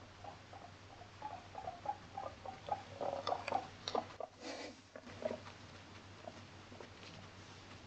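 Abyssinian guinea pig making a run of short squeaks, several a second, growing louder over the first few seconds, followed just after that by a brief noisier sound.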